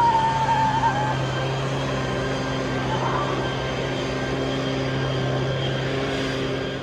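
A steady engine-like drone that holds one pitch throughout.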